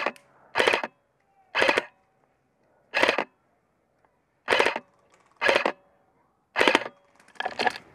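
Airsoft rifle firing eight short bursts of rapid shots, roughly a second apart, heard close up from a camera mounted on the gun.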